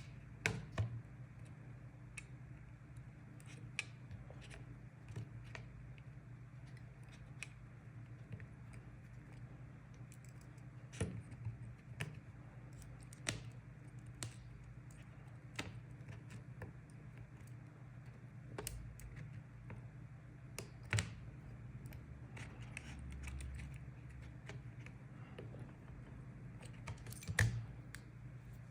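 Scattered light clicks and taps from handling an opened iPhone and small repair tools, irregular and a few seconds apart, over a steady low hum.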